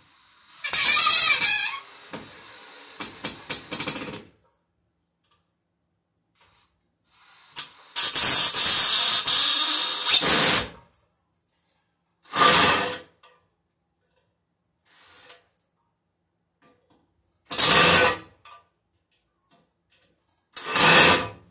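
Cordless drill/driver driving a screw into hardwood in stop-start bursts: a run of about a second, a quick string of short trigger blips, a longer run of nearly three seconds in the middle, then three short bursts near the end as the screw is worked home.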